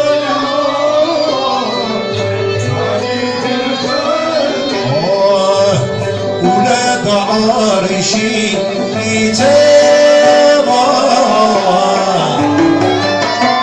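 Live traditional Arabic ensemble music: a male voice singing over bowed and plucked strings and a frame drum, with one long held note about two-thirds of the way through.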